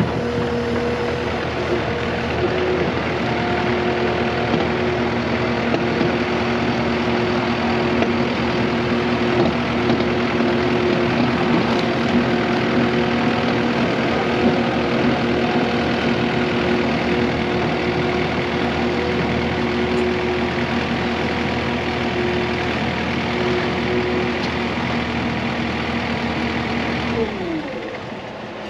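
Skid steer's diesel engine running steadily as the machine drives up into a roll-off container, then shut off near the end, its pitch sliding down as it winds down.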